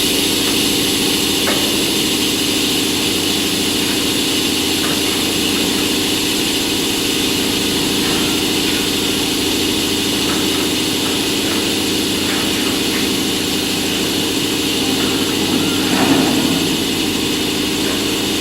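Two EF64 electric locomotives standing at the platform, their equipment humming steadily while the freight train waits to depart, with a steady high-pitched hiss above the hum and a brief knock about 16 seconds in.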